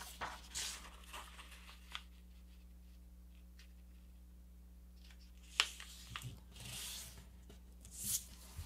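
Faint rustling of a sheet of paper being folded in half, edge brought over to edge, and the crease pressed and smoothed flat by hand, with a sharp tap about halfway through and a longer soft rub of hand on paper a little later.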